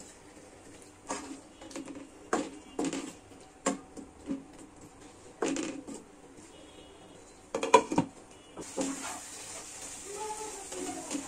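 Wooden spatula stirring chopped tomatoes in a non-stick pan: irregular knocks and scrapes of wood against the pan, the loudest a quick cluster about two thirds of the way through.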